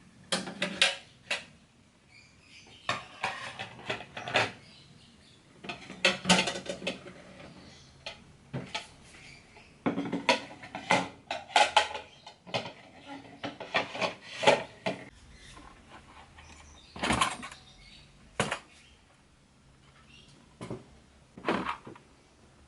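Containers and dishes clattering and clinking as they are picked up and set down, in irregular bursts with short pauses between.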